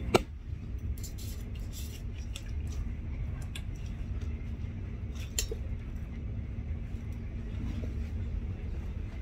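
Steady low rumble of a moving passenger train heard from inside the carriage, with a few sharp clicks and clinks on top, the loudest just after the start and another about five seconds in.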